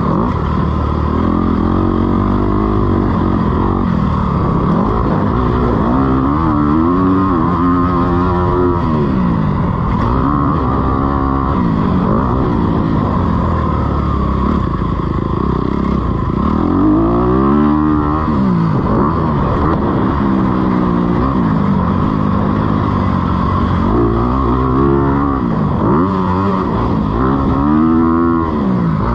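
Honda CRF250R four-stroke single-cylinder engine under way on a motocross track, revving up and down over and over, its pitch rising and falling with the throttle.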